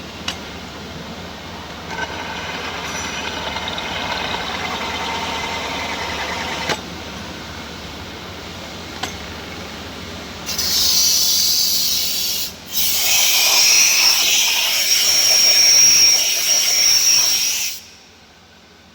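Metal machining of a diff plate, a steady cutting noise for the first several seconds. Then a loud hiss comes in two blasts, a short one and, after a brief break, a longer one of about five seconds that cuts off suddenly near the end.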